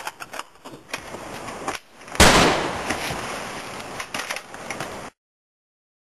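A single loud gunshot about two seconds in, preceded by scuffing footsteps and knocks. The sound cuts off suddenly about five seconds in.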